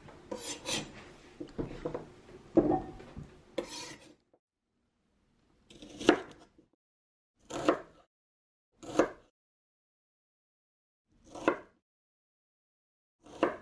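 Cut potato chunks being gathered and shuffled by hand on a cutting board for the first few seconds, then a kitchen knife cutting through an onion down onto the board in five separate strokes, one every second or two.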